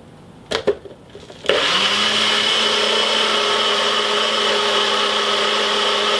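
NutriBullet blender: the cup clicks onto the base a couple of times, then about one and a half seconds in the motor starts and runs steadily, blending coconut flesh with coconut water.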